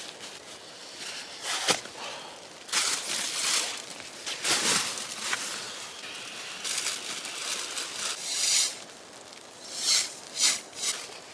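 Foil survival blanket crinkling and rustling as it is handled and spread out, in irregular bursts, with a sharp click about two seconds in.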